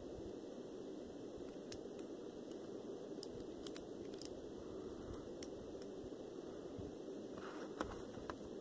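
Packaging being handled and opened by hand: scattered light clicks and crinkles over a steady low hiss, with one sharper click near the end.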